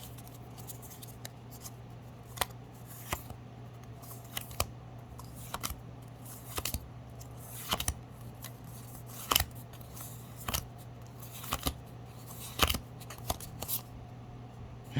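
Pokémon trading cards being flicked through one at a time: a short, sharp swish or snap of card on card about once a second, over a steady low hum.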